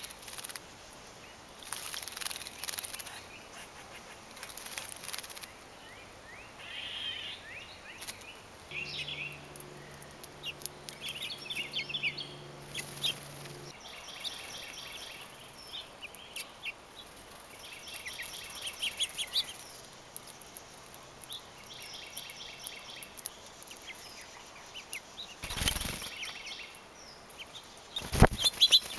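Small songbirds chirping and calling in quick repeated notes around garden feeders. Water splashes from a bird bathing in the first few seconds. Two loud thumps come near the end.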